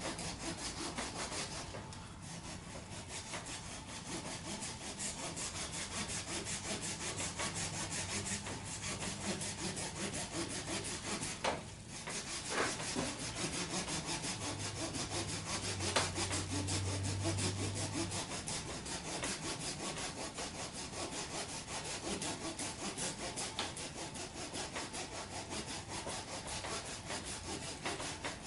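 Hand saw cutting back and forth through the hard dead wood of an American hornbeam trunk, in a steady rasping stroke rhythm. The strokes break off briefly about two seconds in and again near the middle.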